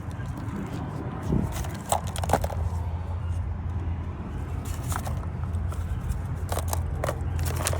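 Scattered sharp clicks and light handling noises over a steady low hum that sets in about two seconds in.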